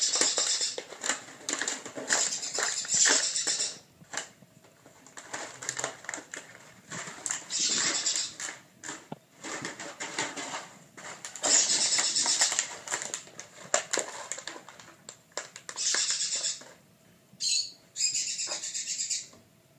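Puppies scrabbling and skittering on a tile floor as they play, with claws clicking and toys rustling and knocking, in repeated bursts a second or two long with quieter gaps between.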